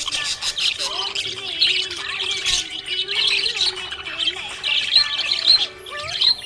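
Budgies chirping and warbling: a busy, continuous chatter of rapid high chirps and short whistled notes.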